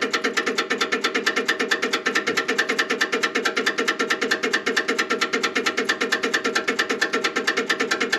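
2009 John Deere 5055E's starting circuit clicking rapidly and evenly, about ten clicks a second, as the key is turned and the engine does not crank. This is the tractor's no-start fault, which the owner puts down to a small solenoid under the dash rather than the starter solenoid.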